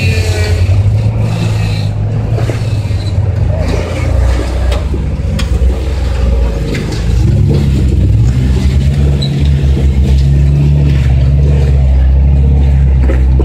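Engines of lifted 4x4 trail trucks running at low speed as they crawl over a rocky trail, with a few sharp knocks between about five and seven seconds in. From about seven seconds in the low engine note grows louder and steadier as the following truck climbs closer.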